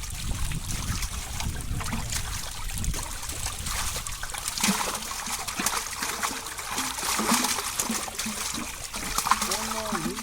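Pond water splashing and trickling in irregular bursts, as a fishing net and catch are worked in the shallows.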